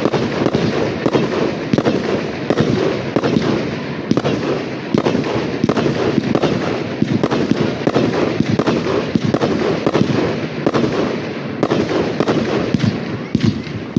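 Fireworks display: a dense, continuous barrage of many bangs a second over crackling.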